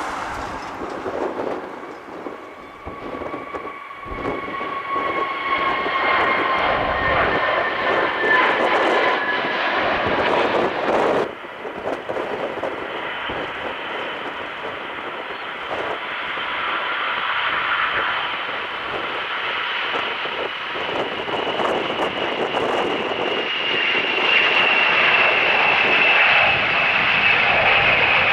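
Jet airliner engines running with a high whine whose tones slowly fall in pitch as the aircraft passes. The sound cuts off abruptly about eleven seconds in and picks up again, the whine growing louder toward the end.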